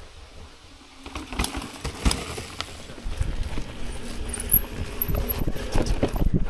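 Mountain bike clattering over a rocky, leaf-covered trail: tyres on leaves and rock, with a dense run of knocks and rattles from the bike, starting about a second in. A thin, high squeal comes in near the end.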